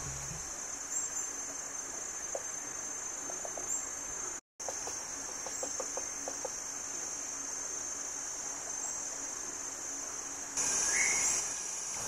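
Steady high-pitched drone of forest insects, with a few faint, quick series of light taps in the middle. The sound drops out for a moment about four and a half seconds in, and near the end the drone grows louder, with a short rising note.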